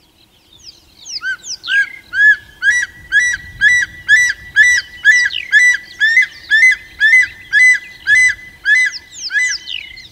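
Juvenile martial eagle calling: a long series of high, whistled, upslurred notes at about two a second, starting about a second in, with a few sharper falling notes mixed in.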